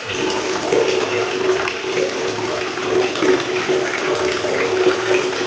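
Water running from a tap into a bucket, a steady flow that starts abruptly at the very beginning.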